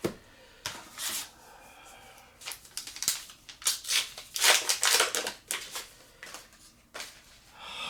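Foil booster-pack wrapper being torn open and crinkled: a run of short crackling rustles, busiest in the middle.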